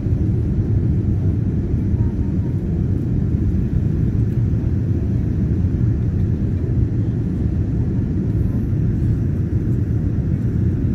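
Steady low rumble of an airliner's engines and airflow heard inside the passenger cabin during the climb after take-off.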